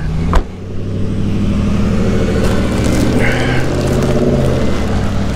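A single thump about half a second in, as a car door shuts, then a car engine running steadily with a low hum.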